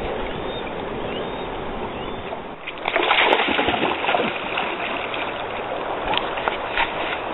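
A pit bull leaps into a shallow river, a loud splash about three seconds in, then smaller splashes as it swims out, over the steady rush of flowing water.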